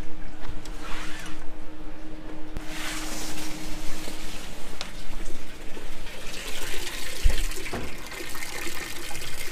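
Top-loading washing machine filling with water, a steady rushing hiss that sets in a few seconds in, while clothes are dropped into the drum with a soft thump.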